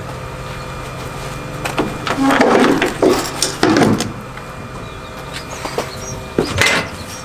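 Clattering and knocking of refuelling being handled at a diesel pump, loudest about two to four seconds in, with a couple of sharp clicks near the end, over a steady low hum.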